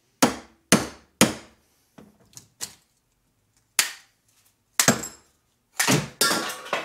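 Hammer blows on brass plumbing pieces, struck to get parts out of them: three hard metal strikes about half a second apart, a few lighter taps, another hard strike, then a quick run of clanking and rattling near the end.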